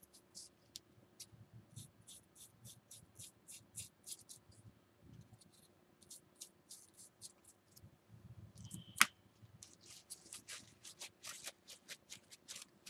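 Faint, quick dabbing and scratching of a paintbrush working black wash into a textured terrain column, many short soft strokes, with a single sharp tap about nine seconds in. Near the end, the crumpling and rubbing of a paper napkin blotting the wet wash.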